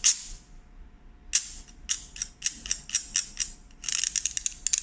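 A fork and a rice paddle scraped against each other in short strokes, making irregular creaking clicks that come faster near the end. It is used as a sound effect likened to glass about to crack.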